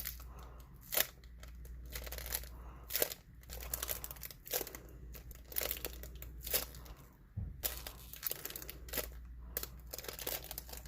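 Hands squeezing and handling a homemade strawberry toast squishy, making irregular crinkling and crackling sounds.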